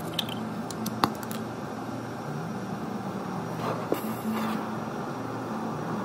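Brazing torch flame hissing steadily while re-brazing a copper line joint on a refrigerator compressor that leaked when bubble-tested. A low hum that shifts in pitch runs underneath, and there are two sharp clicks, about a second in and near four seconds.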